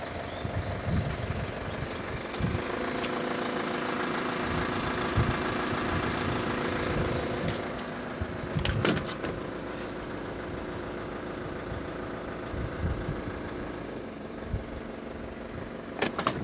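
Nissan Elgrand's 3.0-litre NEO turbo-diesel engine running steadily with a low rumble. A few sharp clicks come about halfway through and again near the end.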